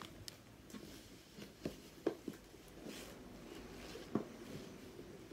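Quiet handling of a parcel's contents: faint rustling of packaging with a few light taps and knocks.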